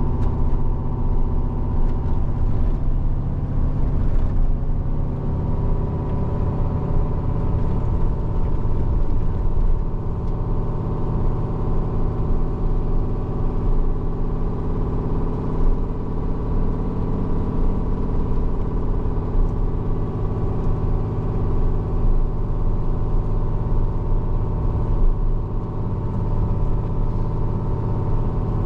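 Steady drone of a heavy truck's diesel engine with road and tyre noise, heard from inside the cab while cruising.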